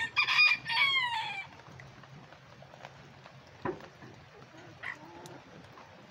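Bantam rooster crowing once: a short, high crow of a few notes ending in a long falling note, over the first second and a half. Later comes a faint knock and a brief high chirp.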